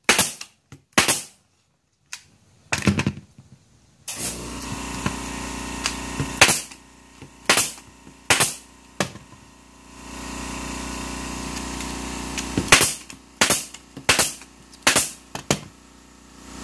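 Pneumatic staple gun firing staples through white plastic fabric track into plywood: a dozen or so sharp shots, unevenly spaced, several in quick runs. A steady hum comes on and off between the shots.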